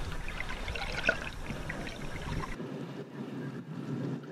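Faint underwater water sound with scattered small crackles. About two and a half seconds in, the low rumble cuts out, leaving only a fainter hiss.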